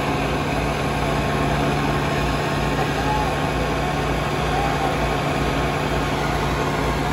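Farmtrac 6055 and Indo Farm 3055 diesel tractor engines running steadily under heavy load as the two tractors pull against each other in a tug-of-war, with crowd voices in the background.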